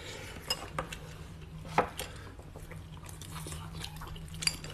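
Light scattered clicks and clinks of chopsticks against bowls and plates at a meal table, over a faint steady low hum.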